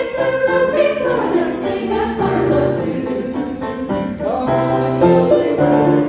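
A choir singing a Christmas song, with several voices holding sustained notes that change every fraction of a second.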